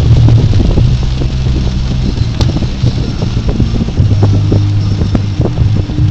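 Inside a car driving through a heavy rainstorm: a steady low engine and road hum, with rain pattering irregularly on the car's body and windshield.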